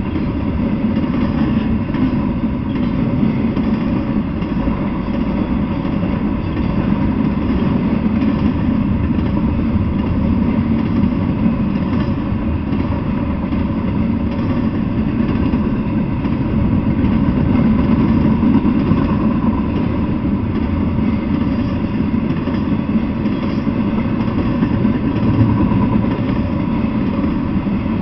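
Freight train of double-stack intermodal well cars rolling past, steel wheels on the rails making a steady, loud, low rolling noise that doesn't let up.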